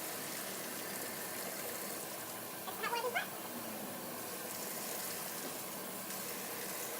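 Hot tap water running steadily over broccoli in a strainer. A cat gives one short meow about three seconds in.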